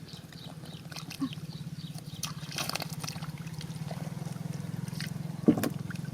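Shallow water splashing and trickling, with a steady low hum underneath and one sharp, louder knock about five and a half seconds in.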